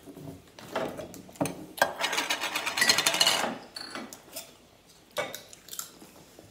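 Plastic lid of a nacho cheese sauce jar being handled and twisted off: a few knocks, then a rapid ratcheting rattle lasting about a second and a half.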